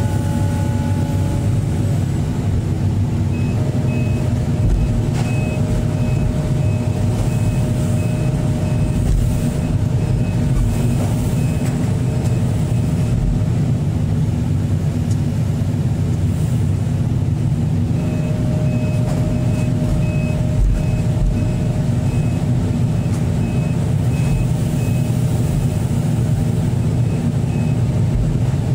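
Hydraulic excavator's diesel engine running loud and steady as the machine tracks forward onto a lowboy trailer. Its travel alarm beeps rapidly and evenly in two long runs, each with a steady whine, while the tracks are moving.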